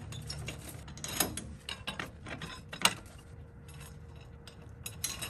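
Light metal clicks and clinks of washers and nuts being fitted and threaded by hand onto leaf-spring U-bolts. The sharpest clicks come about a second in and about three seconds in.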